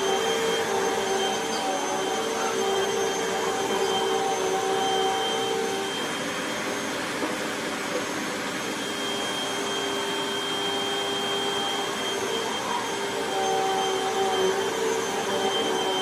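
Hoover WindTunnel Rewind upright vacuum cleaner running steadily as it is pushed over a rug, a pretty loud motor hum with a steady whine, a little quieter for a few seconds in the middle.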